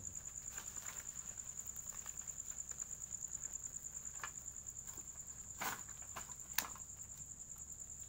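An insect's steady, high-pitched, rapidly pulsing trill, typical of a cricket at night. Two brief sharp cracks come about two-thirds of the way through.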